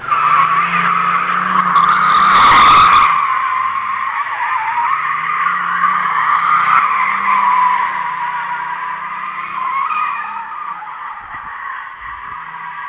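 Rear tyres of a Mercedes W211 E270 CDI squealing without a break as the car drifts, with its five-cylinder turbodiesel engine running beneath. A loud rushing surge peaks about two to three seconds in, and the squeal eases off toward the end.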